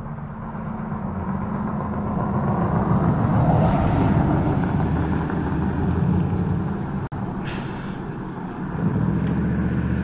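A motor vehicle's engine running close by, swelling louder through the middle and again near the end, as if passing on the road.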